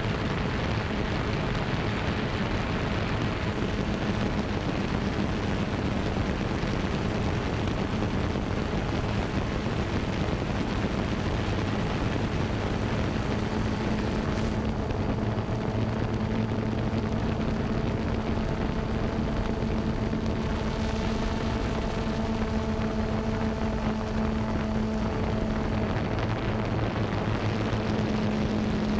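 Xiro Xplorer G quadcopter in flight, its motors and propellers giving a steady hum under a rushing noise, heard from the GoPro it carries. The hum's pitch shifts slightly about halfway through and again near the end.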